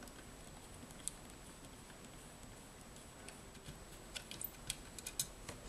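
Faint ticks and clicks of a small screwdriver turning out a screw from the metal case of a homemade cassette player: a single click about a second in, then a run of clicks in the last two seconds.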